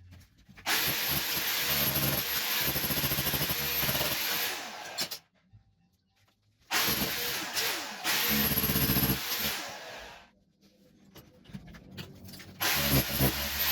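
Electric power tool, run in three bursts of a few seconds each with a high motor whine, while old ceramic wall tiles are being stripped. The last burst starts near the end.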